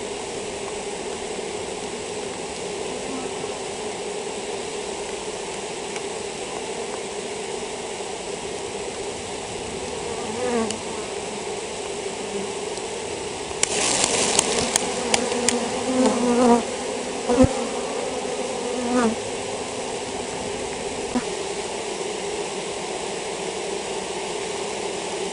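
Honeybees buzzing steadily in a dense mass around an open hive, with single bees now and then flying close past with a rising and falling drone. About halfway through come a burst of rustling and a few sharp knocks.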